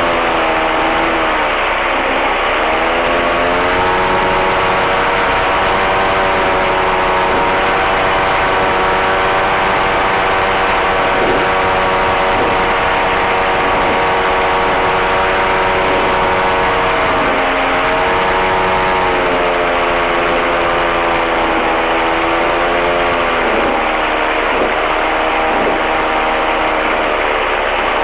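Two-stroke engine of a Buccaneer II amphibious ultralight, picked up loud through the radio headset microphone on the landing approach. It runs steadily, its pitch dipping and coming back near the start, in the middle and again near the end.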